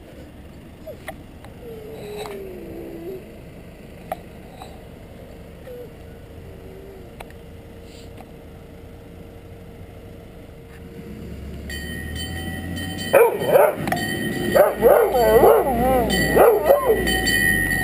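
Dalmatian whimpering softly at first, then howling in loud, wavering notes from about three quarters of the way through. Behind it a rising engine rumble and a high steady tone come from the approaching ice cream van.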